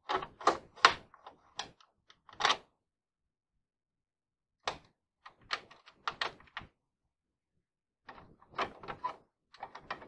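Door locks being worked: three bursts of sharp clicks and clunks, each about two seconds long, with pauses of a couple of seconds between.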